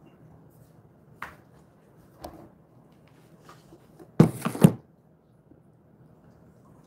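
A plastic snack container being handled and picked up: a light knock about a second in and another about two seconds in, then a louder quick cluster of clattering knocks just past four seconds.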